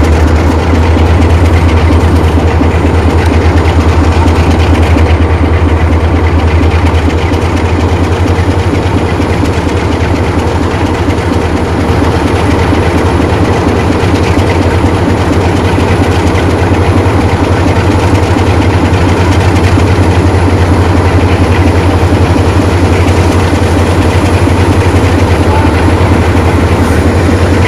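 Diesel locomotive engine running with a steady low throb as it hauls a passenger train slowly along the platform.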